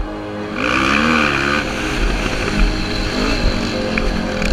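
Racing quad (ATV) engine running hard on board, its pitch rising and falling about a second in as the revs change.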